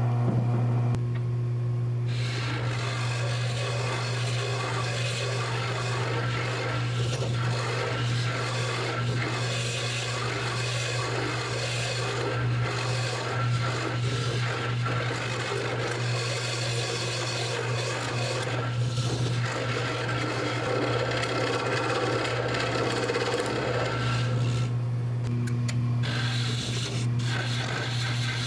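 Jet wood lathe running with a steady hum while a hand-held turning tool cuts and scrapes the spinning wood blank. The cutting noise stops briefly about a second in and again near the end, when the tool comes off the wood.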